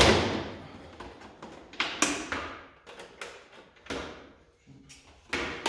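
Plastic fairing clips and panels of a Yamaha R3 being pried and pulled off by hand: sharp plastic clicks and knocks, the loudest right at the start, then more every second or two.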